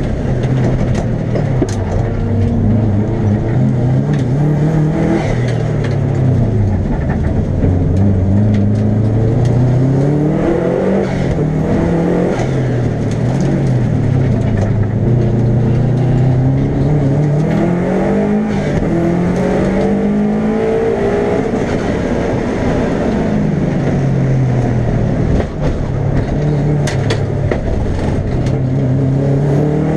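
Subaru Legacy RS Group A's 2.0-litre turbocharged flat-four boxer engine, heard from inside the cabin, revving hard under acceleration and dropping off under braking, again and again. Its pitch climbs in long sweeps and falls back as the car goes through the gears and slows for corners.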